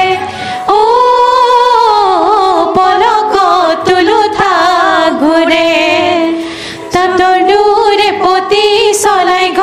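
A group of women singing an Assamese folk song together through microphones, in long gliding phrases with two short breaks between phrases.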